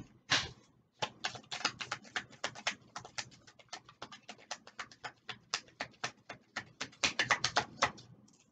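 Oracle cards being shuffled by hand: a quick, irregular run of soft card clicks and slaps, several a second, starting about a second in and busiest near the end.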